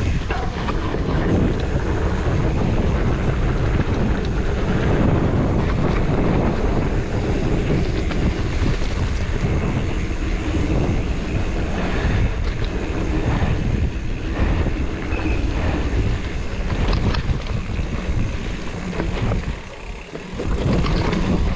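Mountain bike descending a dirt singletrack: tyre noise and frame and chain rattle over the bumps, with wind buffeting the camera's microphone. The noise eases briefly near the end.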